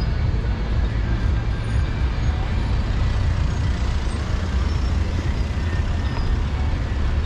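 Steady road traffic: cars driving past on a busy city street, with a heavy low rumble.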